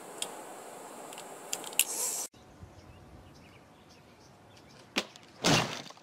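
Steady background noise with a few light clicks, then quieter; about five seconds in a sharp knock, followed by a loud half-second crash as a child drops from a tree onto a white plastic garden chair.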